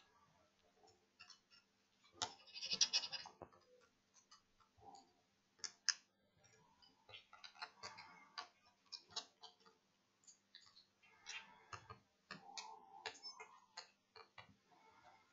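Small repair tools clicking and scraping on the opened iPhone 6s's internals: irregular light clicks, with a longer, louder scrape about two seconds in.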